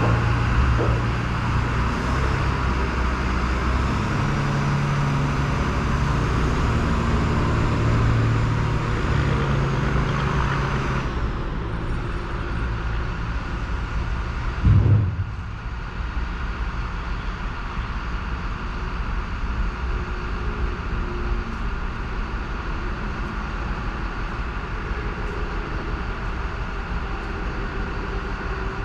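Plow truck engine running while driving, with a rushing road noise that eases off partway through and a single thump about halfway in.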